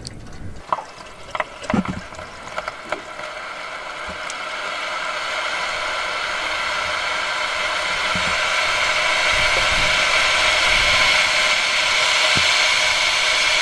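Water pouring from an upturned plastic gallon jug into the bus engine's cooling system, a few light plastic knocks and clicks at first, then a steady rush of pouring that grows louder about four seconds in. The coolant is being topped up with plain water because the cooling system's plastic pressure vessel has failed.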